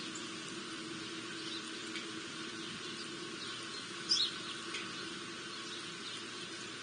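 Small birds at a feeder giving short, scattered chirps, with a louder call about four seconds in, over a steady low hum.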